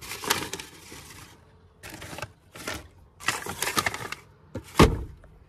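Rustling and clicking as the owner's guide is handled in the glove box, in several short bursts, then one sharp knock near the end.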